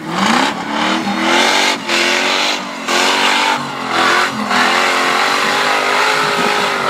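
Engine of an off-road competition 4x4 revving hard. It climbs in pitch at the start, then holds high revs with several brief dips.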